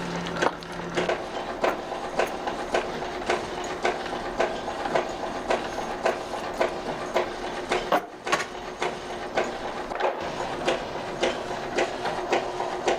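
Milling machine working steel scissor blanks, running with a steady hum and a regular sharp knock about twice a second. It briefly drops out about eight seconds in.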